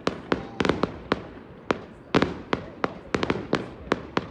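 Aerial fireworks bursting in quick, irregular succession: a string of sharp bangs, some in tight clusters, each trailing off in a short echo.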